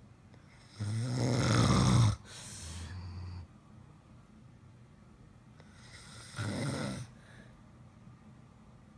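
Snoring from a sleeper. A loud snore about a second in grows louder and stops abruptly, followed by a softer breath out; a second, shorter snore comes about six seconds in.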